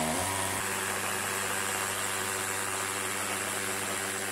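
Cordless drill boring a hole into a wall, its motor running at a steady speed under load. The motor's pitch dips slightly just after the start, then holds steady.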